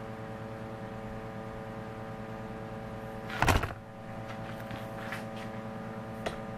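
Steady electrical hum with several overtones throughout. About three and a half seconds in, a short loud scuff as a hand moves over the paper notebook on the carpeted bench, followed by a few faint ticks.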